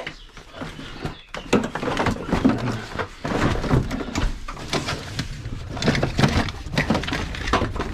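Irregular clicks, knocks and clatter of equipment being handled, with no steady machine sound.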